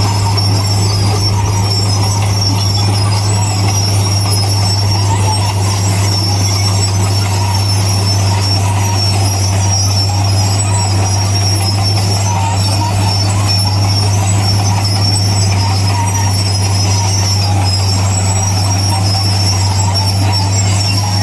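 Heavy diesel earthmoving machinery running steadily under load, a constant deep engine drone with a thin high metallic squeal over it.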